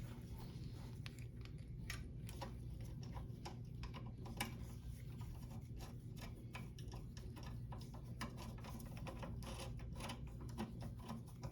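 Faint, irregular light clicks and taps of small metal parts being handled as a lawnmower carburetor and its throttle linkage are fitted back onto the engine, over a steady low hum.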